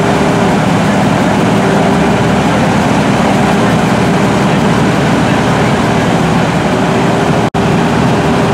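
Fire engines' motors running steadily while their pumps draft water from the river and shoot it through deck guns, a steady drone with a hum in it. The sound drops out for an instant near the end.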